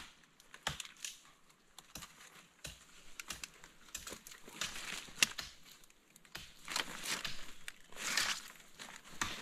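Irregular crunching and rustling of leaves and plant stems, with scattered sharp snaps and crackles.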